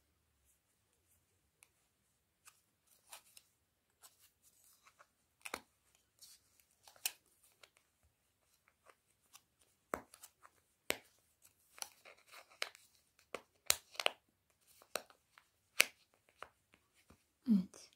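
Hands working plastic template discs and polyester stuffing into a crocheted velvet-yarn piece: scattered sharp clicks and soft rustles, coming closer together in the second half, with a short low sound near the end.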